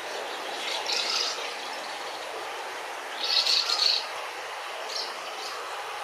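Asian house martins twittering at their mud nest: a short burst of high chirps about a second in, then a longer, louder burst a little after three seconds, and two faint chirps near the end, over a steady background hiss.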